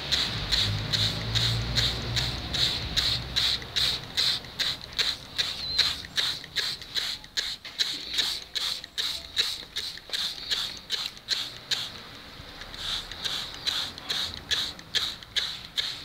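Hand-pump spray bottle misting plants: a quick spray hiss with each pump, about three a second, stopping briefly about twelve seconds in.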